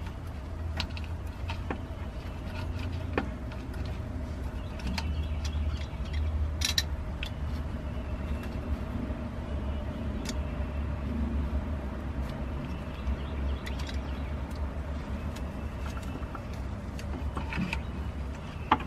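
Scattered light metallic clicks and ticks of hose-clamp pliers gripping and working a spring hose clamp on a transmission cooler line, over a steady low rumble.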